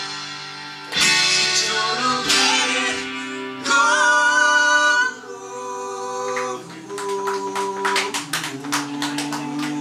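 Live song: acoustic guitar strummed under a man and a woman singing, with held sung notes. From about halfway through the guitar strumming turns quick and choppy.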